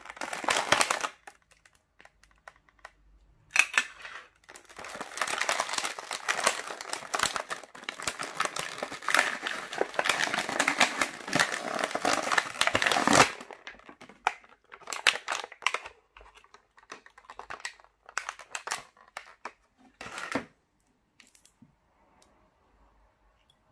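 Clear plastic packaging crinkling as it is handled and pulled open: a short burst at the start, then about ten seconds of continuous crinkling, then shorter bursts that stop a few seconds before the end.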